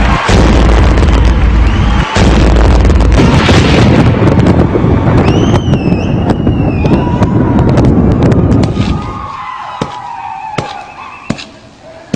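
A studio audience cheering loudly, with piercing whistles, after a dance; the roar dies down about nine seconds in to scattered claps.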